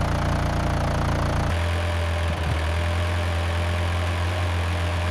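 Tractor engine running steadily at idle, a low steady drone whose tone changes about a second and a half in.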